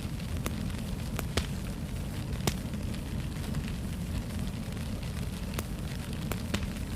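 Wood fire crackling in a fireplace: a steady low rumble of burning under a scattering of sharp pops and snaps, the loudest about two and a half seconds in.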